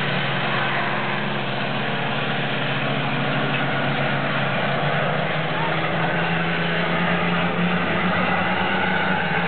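Skid cars, race cars running on metal skids in place of their rear wheels, circling the track with their engines running steadily, with people's voices mixed in.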